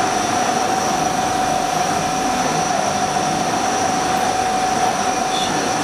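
CNC turning machine cutting a part spinning in its chuck under flood coolant: a steady whine from the spindle and cut over the hiss and splash of coolant.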